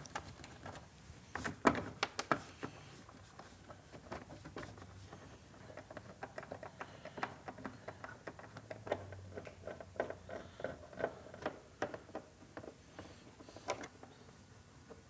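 Phillips screws being turned by hand with a screwdriver into a motorcycle fairing's windshield mounts: faint, irregular small clicks and light taps of metal on plastic, with a few sharper knocks about two seconds in.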